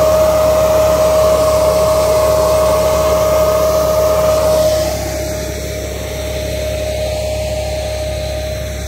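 Vacuum fan of a four-row Agria pneumatic corn planter whining steadily at one high pitch over the running IMT 549 tractor's engine. About five seconds in it turns quieter and duller.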